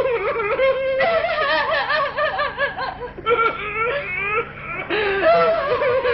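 A cartoon character wailing and sobbing loudly in a high voice that wobbles up and down in pitch, pausing for breath two or three times.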